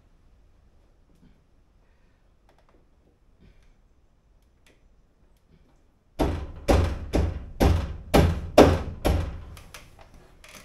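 Faint small clicks of handling, then about six seconds in a run of sharp knocks, roughly two a second, from a metal part being struck.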